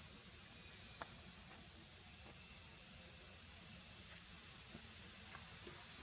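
Faint steady high-pitched drone of insects, with a few soft clicks, one about a second in.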